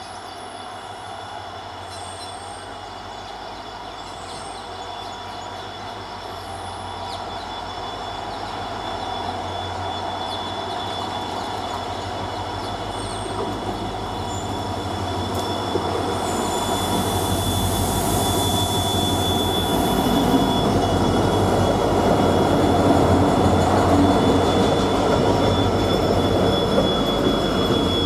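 Coal freight train behind twin WDG-4 diesel locomotives rolling along the track, wheels squealing with a steady high whine over low engine hum and rumble, growing steadily louder.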